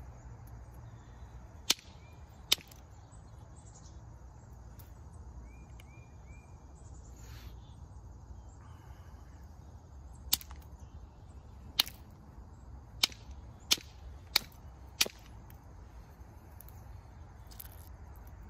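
Sharp clicks of flakes snapping off a flint point worked with a copper-tipped tool: two about two seconds in, then six more in quick succession from about ten to fifteen seconds.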